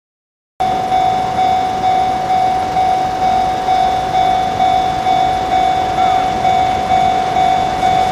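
Japanese railway level-crossing warning bell ringing at about two strikes a second, a steady repeating ding that cuts in about half a second in, warning of an approaching train.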